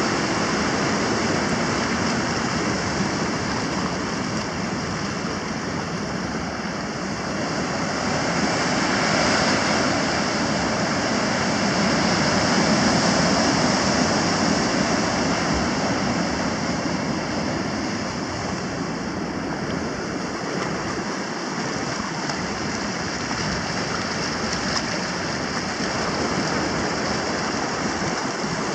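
Ocean surf breaking and washing up a sand beach, mixed with the rush of creek water running out into the sea: a continuous noise of water that swells louder about ten seconds in and eases again.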